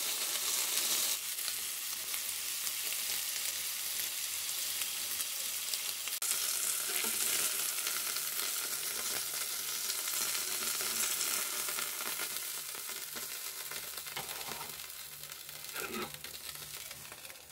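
Marinated chicken thighs sizzling loudly on a hot cast-iron grill pan, a dense steady hiss of fat and juices frying. The sizzle dies away near the end.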